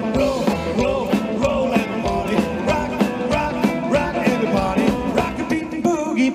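Live rock-and-roll band playing an up-tempo number with drums, upright double bass and electric guitars, a steady driving beat.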